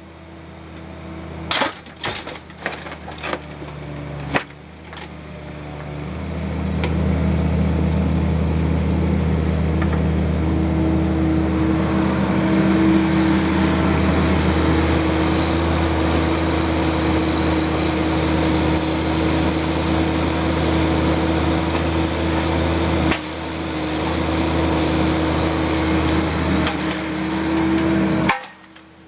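Bobcat 322 mini excavator's diesel engine running under load: a steady drone that swells about six seconds in and drops sharply near the end. In the first few seconds there are sharp knocks of the steel bucket against rock in the truck bed.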